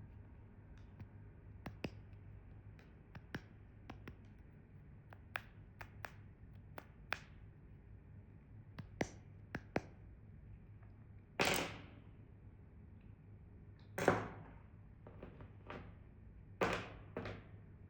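Candy and its packaging handled close to the microphone: scattered light taps and clicks, with three louder short rustling bursts about eleven, fourteen and sixteen and a half seconds in.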